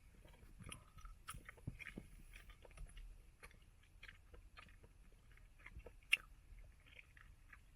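Bubble gum being chewed, heard as faint, irregular short clicks and smacks of the mouth, with one sharper click about six seconds in.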